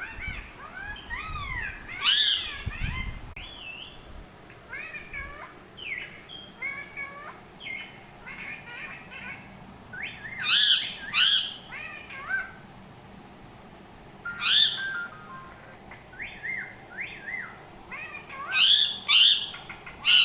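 Parrot chirping and whistling in many short calls that glide up and down in pitch. Loud, harsh squawks break in about two seconds in, twice around ten to eleven seconds, once near fourteen seconds, and twice near the end.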